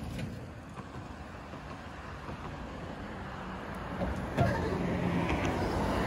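Road traffic passing on a highway: a steady haze of engine and tyre noise from trucks and cars, growing louder about four seconds in.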